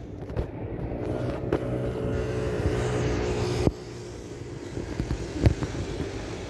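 A steady motor hum with several even tones swells and then cuts off suddenly a little past halfway. It is followed by a few scattered knocks and clicks.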